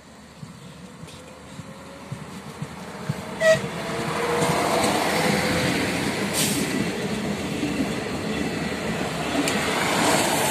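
ČD class 811 diesel railcar train approaching and passing close along the platform, its engine and wheels on the rails growing steadily louder. About three and a half seconds in comes one brief sharp tone, the loudest moment.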